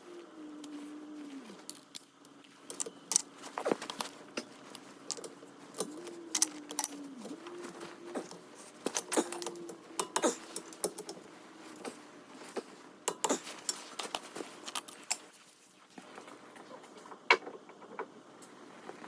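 Metal tools and brake parts clinking and clicking, irregular sharp metallic knocks of hands-on brake work.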